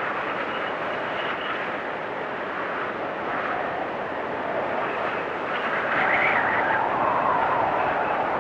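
Strong winter wind blowing in gusts. A gust swells about six seconds in, its whistling pitch rising and then sinking.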